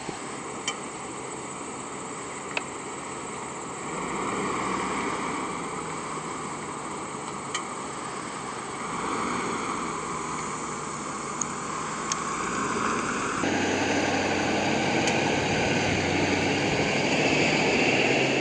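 Camouflaged 2023 Ford Super Duty pickup truck driving slowly over uneven ground, its engine running steadily, with a few sharp clicks. The sound steps up suddenly in level about two-thirds of the way through as the truck climbs a dirt hill.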